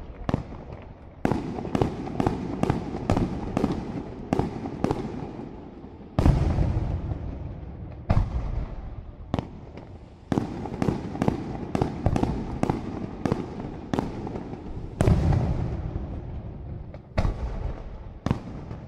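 Aerial firework shells bursting in a professional display: quick volleys of sharp reports, two or three a second, with heavier deep booms about six seconds in and again near fifteen seconds, each followed by a rolling echo.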